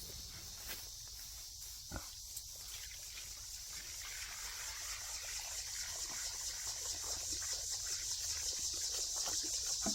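Insects chirring in an evening chorus: a steady, rapidly pulsing high-pitched trill that grows slowly louder, with a few faint knocks.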